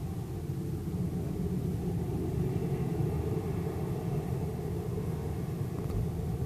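Beechcraft King Air 250's twin Pratt & Whitney PT6A turboprop engines heard from a distance as a steady low rumble while the aircraft rolls along the runway.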